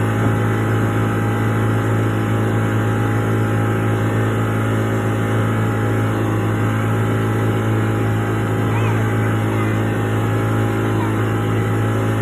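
Boat engine running steadily, a constant low drone that holds at one pitch.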